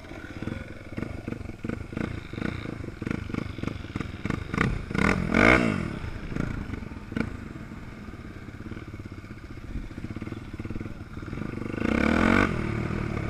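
Off-road motorcycle engine heard from on board, running through the gears over rough grass with a pulsing exhaust note. A quick rev up and back down comes about five seconds in, and a louder burst of throttle comes near the end.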